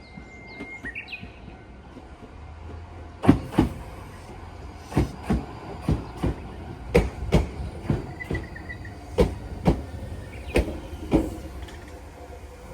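Iyo Railway train's wheels clacking over rail joints in paired knocks over a low rumble. The knocks in each pair come further apart as the train slows.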